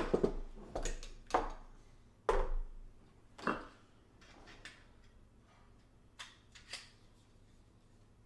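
Metal frame parts and hardware being handled, giving a series of irregular light clinks and knocks. They are louder and closer together in the first few seconds and fainter and sparser afterwards.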